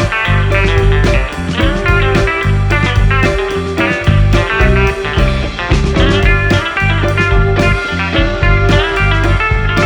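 Upbeat background music with guitar over a steady beat.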